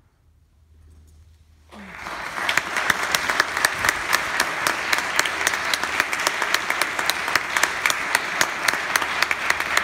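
A brief hush, then audience applause breaks out suddenly under two seconds in and carries on steadily. A few nearby claps stand out sharply, about four a second.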